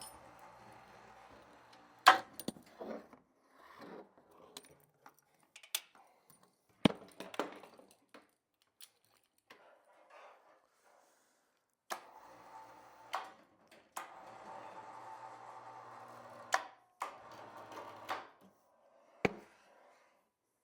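Metal clanks, knocks and rattles of an overhead crane hoist being worked to lift a zero-turn mower. Two stretches of steady hum come through, one at the start and one about twelve seconds in. The loudest knock comes about two seconds in.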